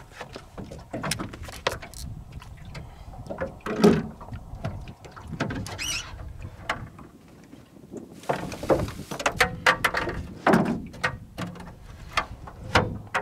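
A hooked redfish being fought from a small fishing boat: irregular knocks, splashes and handling noises, with a brief rising squeal about six seconds in.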